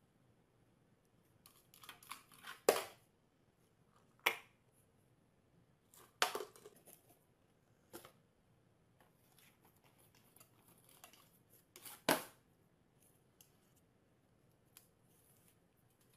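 A handful of sharp taps and clicks a few seconds apart, over faint room noise: a small dog's claws and the objects it nudges knocking on a glass tabletop.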